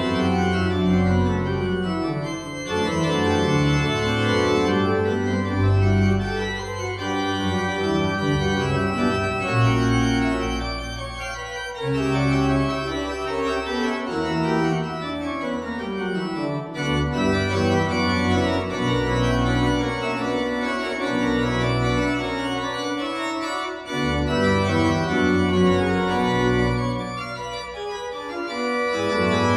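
Church organ played with full, sustained chords that change every second or so over deep bass notes, with lines of notes moving up and down through the harmony.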